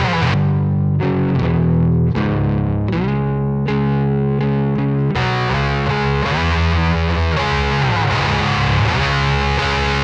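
Electric guitar played through the Occvlt Pedals Wrathprayer, a one-knob distortion pedal with an HM-2-style tone stack, giving heavy distorted chords. For about the first half the tone is darker, with separate chord strikes. About halfway through it turns brighter and fizzier as the pedal's gain is turned up.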